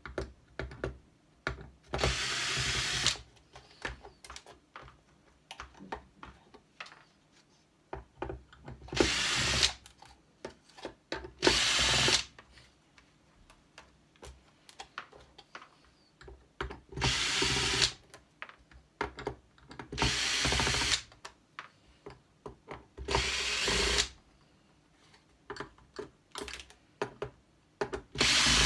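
Cordless drill-driver backing small screws out of a plastic device casing, in about seven short runs of roughly a second each. Small clicks and taps come between the runs as the screws are lifted out.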